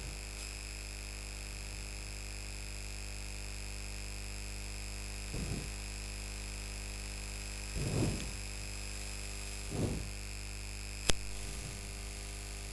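Steady electrical mains hum and whine from the microphone setup, many fixed tones at once. Three brief soft low sounds come partway through, and there is one sharp click near the end.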